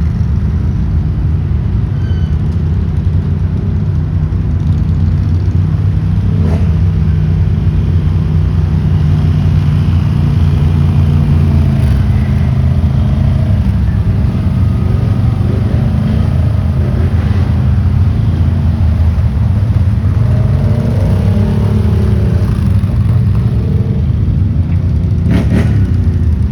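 ATV engine running under way, its pitch rising and falling with the throttle over a heavy low rumble, with a couple of short knocks.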